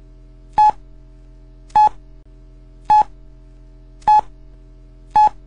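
Short electronic beeps, all at the same pitch, about one every 1.2 seconds, five in all, over a steady low hum.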